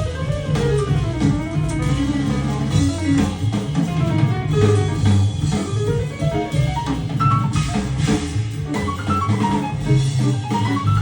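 Instrumental music, quick rising and falling runs of notes over bass and drums, played back through a pair of Cabasse Minorca MC40 bookshelf speakers.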